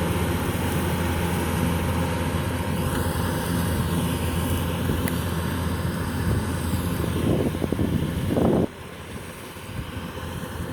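Kubota combine harvester's diesel engine running steadily under load while harvesting rice. About two-thirds of the way through, the sound drops sharply to a quieter engine hum.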